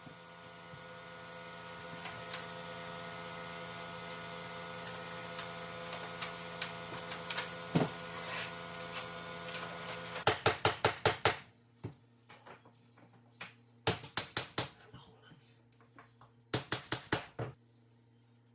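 A steady hum for about ten seconds, then quick runs of sharp knocks, several a second in three clusters, as laminate flooring planks are tapped into place.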